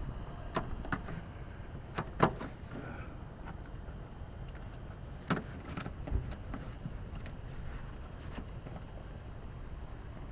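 A few scattered metallic knocks and clicks as strut parts and tools are handled and lined up, the loudest a little over two seconds in, over a steady low rumble.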